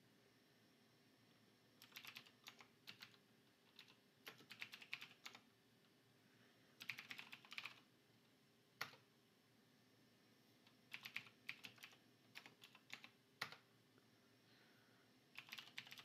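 Computer keyboard typing, quiet: short bursts of keystrokes separated by pauses of a second or two, with a few single key presses between them.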